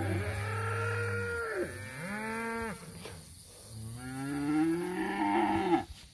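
Cattle in a herd mooing: a long moo at the start, a shorter one about two seconds in, and another long moo from about four seconds in.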